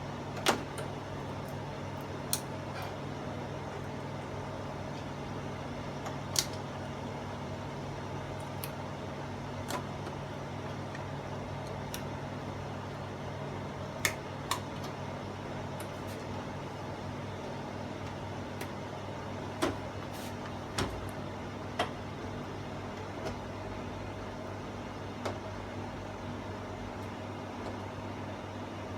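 Sharp clicks and taps of plastic and metal TV parts being handled during disassembly, about a dozen at irregular intervals, over a steady low background hum.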